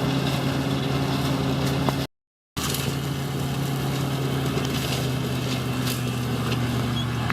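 John Deere tractor's diesel engine running steadily under load. The sound drops out completely for about half a second about two seconds in, then the engine runs on at a slightly lower pitch.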